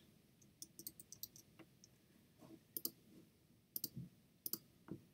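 Faint computer keyboard keystrokes in a quick run about a second in, followed by several separate mouse clicks.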